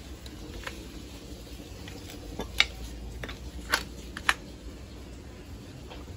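A Labrador puppy's paws and claws clicking and tapping on loose ceramic tile pieces as it walks about sniffing: about six short, sharp clicks, the sharpest clustered around the middle, over a low steady rumble.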